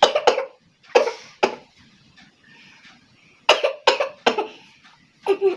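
A woman giving a string of sharp, explosive coughs and sneezes in small clusters, brought on by tickling the inside of her nose with a thin strip of mango leaf.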